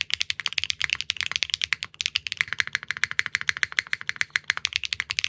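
Fast, continuous typing on a Neo65 Core Plus custom mechanical keyboard fitted with Keygeek PA triple-nylon linear switches: a dense, even run of loud, clacky keystrokes.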